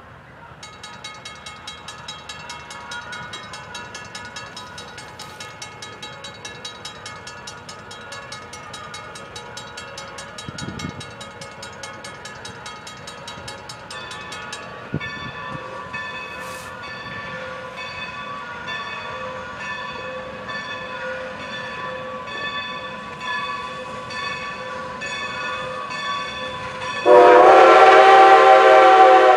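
Railroad grade-crossing signal bell dinging rapidly and steadily. About two seconds before the end, a Strasburg Rail Road steam locomotive blows its chime whistle, a loud chord of several tones at once.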